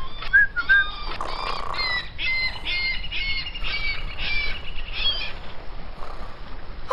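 Birds chirping and squawking in a quick run of short, bending calls. A whistled tune fades out in the first second.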